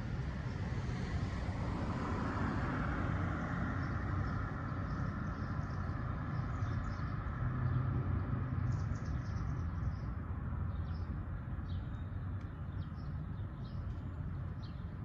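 Downtown street ambience: a vehicle passes during the first few seconds over a steady low rumble, then birds chirp repeatedly through the second half.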